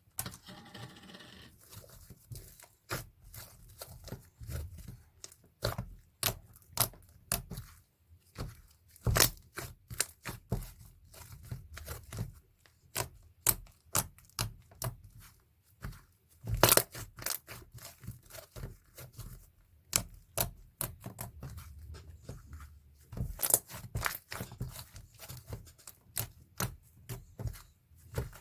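Irregular clicking, crinkling and tearing sounds of small objects and wrapping being handled close to the microphone, in clusters of sharp taps with quieter gaps between.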